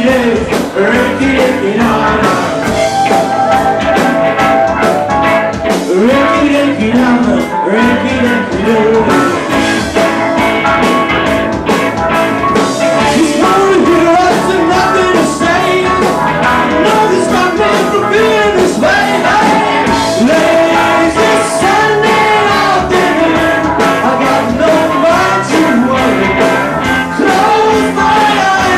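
Live rock band playing loudly, with electric guitars and a drum kit, while a woman sings lead.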